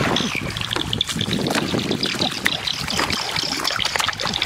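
Repeated splashing and sloshing in shallow, weedy water as hands thrash and grab for a fish.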